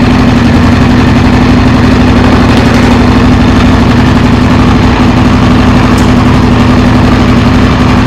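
Honda XR600R's single-cylinder four-stroke engine idling steadily.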